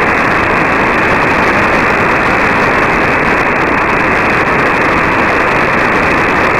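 Steady shortwave static: hiss of band noise from an RFSpace SDR-IQ receiver in upper-sideband mode, with no voice on the frequency. The sound is cut off above about 2.7 kHz by the receiver's filter.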